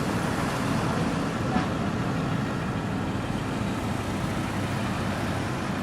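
Steady low road and engine noise of a car driving.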